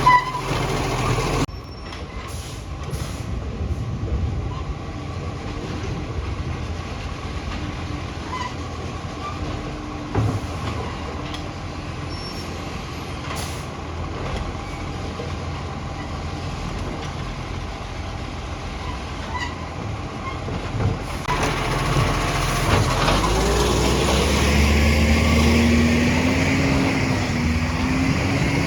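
Garbage truck engine running, the truck having an exhaust leak; a bit over two-thirds through, the engine revs up louder and its pitch rises and wavers.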